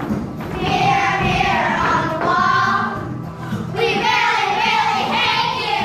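Group of children singing a song number with musical accompaniment, in two long phrases of held, wavering notes.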